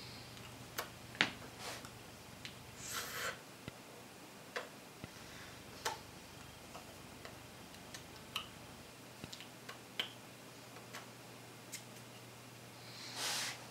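Faint, scattered clicks and taps of hands and fingers meeting while signing, over a low steady hum, with two short breathy rustles, one about three seconds in and one near the end.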